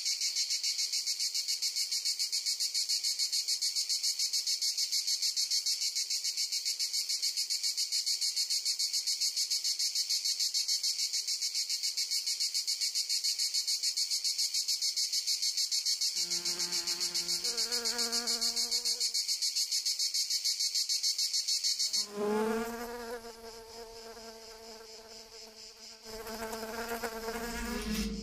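Insects chirring in a loud, fast, evenly pulsing high buzz that cuts off suddenly about three-quarters of the way through. A few short pitched notes sound shortly before the cut, and sustained pitched tones with a low hum follow it.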